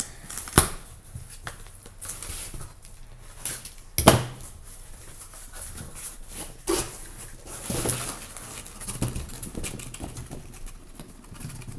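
A sealed cardboard shipping case being opened by hand: flaps pulled open and cardboard rustling and scraping, with sharp knocks as the boxes inside are pulled out and set down on the table, the loudest about four seconds in.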